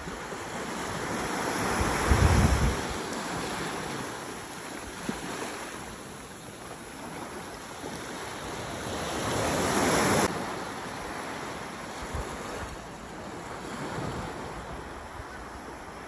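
Small waves washing up on a sandy beach, a steady wash that swells twice: about two seconds in and again just before ten seconds, where it cuts off suddenly. Wind buffets the microphone briefly during the first swell.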